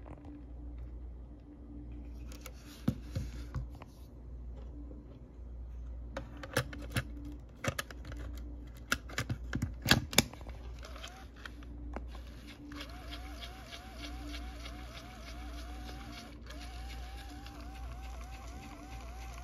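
Panasonic RQ-S20 Walkman cassette player handled: a run of sharp clicks and snaps as the cassette door is shut and the controls are worked. About twelve seconds in, the tape starts playing, with a repeating warbling tone about two or three times a second over a faint hiss.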